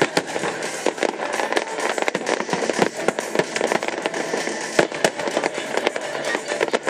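Fireworks display: many shells bursting in quick succession, a dense run of sharp bangs and cracks over continuous crackling, without a pause.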